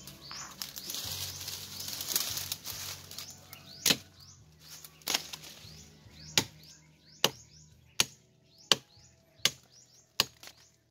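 A bolo knife chopping at a stem or branch in the brush: eight sharp chops, the first about four seconds in, coming faster toward the end, after a few seconds of rustling through leaves.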